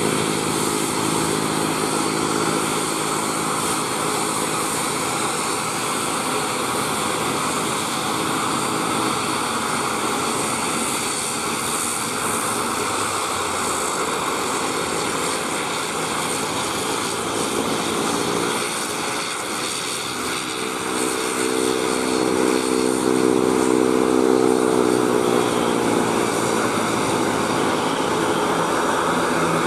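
An ATR 72-600's twin turboprop engines running as the airliner taxis and turns, a steady propeller drone. About two-thirds of the way through the drone shifts in pitch and grows louder for several seconds.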